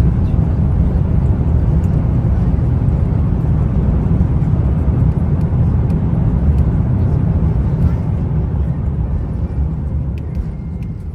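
Airbus A350 landing noise: a loud, steady low rumble that eases off over the last few seconds as the aircraft slows.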